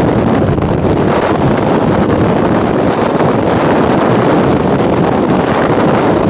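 Strong gusty wind blasting the camera microphone: a loud, steady rushing rumble with no letup.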